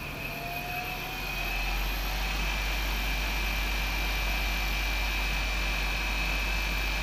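Electric spindle motor fed by a MicroMaster 440 inverter speeding up on command to the higher spindle speed of S6000: a whine rising in pitch and getting louder over the first two seconds or so, then running steady.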